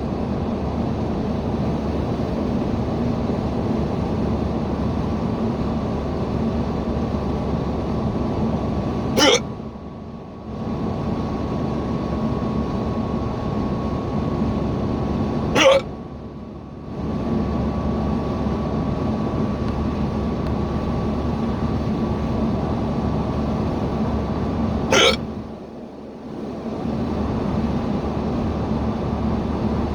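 A person hiccuping three times, several seconds apart, each hiccup short and sharp, over the steady road and engine noise inside a moving car's cabin.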